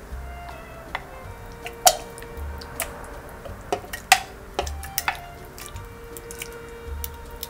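A spoon knocking and scraping against a clear plastic blender cup as soft cooked tomato and onion is dropped in with wet plops; a handful of irregular sharp clicks, the loudest about two and four seconds in.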